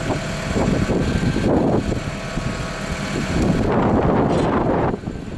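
Tow truck's engine running, a steady low rumble, with wind gusting on the microphone.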